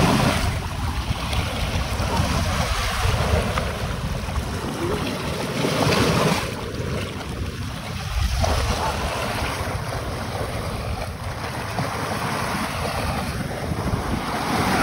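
Sea waves washing onto the shore, the surf swelling and easing every few seconds, with wind buffeting the microphone.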